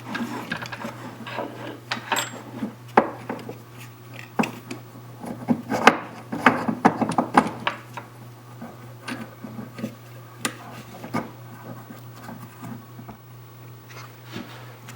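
Irregular clicks, knocks and rubbing of the belt sander's metal clamp assembly being handled and re-mounted, over a steady low hum.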